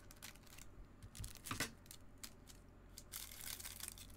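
Foil wrapper of a 2021 Bowman Mega Box baseball card pack crinkling in gloved hands, with a louder crackle about a second and a half in, then scissors cutting through the wrapper near the end.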